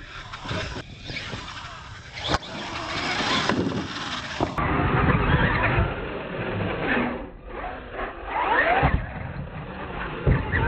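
Radio-controlled monster trucks' electric motors whining up and down in pitch as they speed up and slow down, with a few sharp thumps as the trucks land jumps on the dirt.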